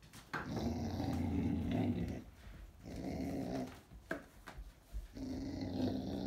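Dog growling with a toy held in its mouth, in three drawn-out bouts with short pauses between them.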